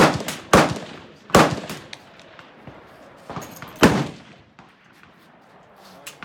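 Smith & Wesson M&P15 Sport II AR-15 rifle in 5.56 mm firing four loud shots, one right at the start, one about half a second later, one near a second and a half, and the last near four seconds in after a longer pause, each with a short ringing tail. Fainter sharp cracks fall between the shots.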